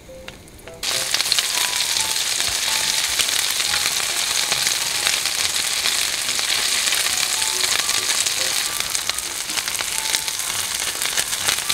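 Battered fish fillets (saengseon-jeon) pan-frying in hot oil: a dense, crackling sizzle that starts suddenly about a second in.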